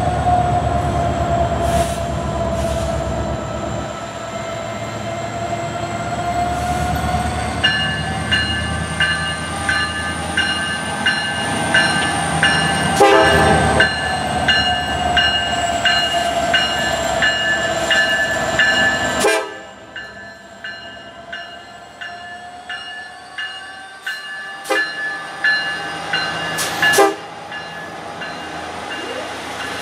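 Nathan K5LLA five-chime horn on a Norfolk Southern SD70M-2 locomotive, sounding one long blast as a loaded coal train approaches. The horn cuts off abruptly about 19 seconds in, and the locomotives then roll by with scattered clicks of wheels over the rail.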